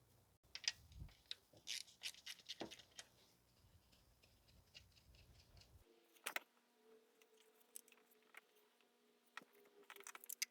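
Faint, scattered metallic clicks and scrapes of hand tools working a nut loose on an engine-bay bracket, busiest in the first few seconds. From about six seconds in there is a faint steady hum.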